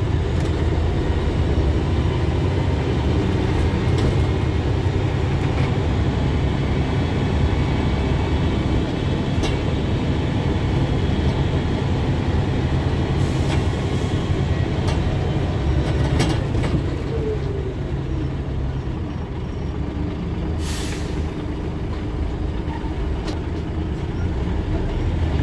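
Engine and road noise inside a moving bus: a steady low rumble with light rattles, easing off somewhat in the last third. About three-quarters of the way through comes a short hiss of air, typical of the bus's air brakes.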